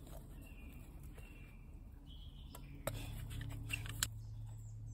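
Quiet woodland ambience with a bird chirping faintly a few times. A few sharp clicks come about three and four seconds in, the last the loudest, and a low steady hum sets in at the first click.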